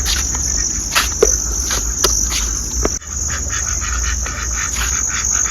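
Insects chirring in a steady, high-pitched drone, with a few sharp clicks over it.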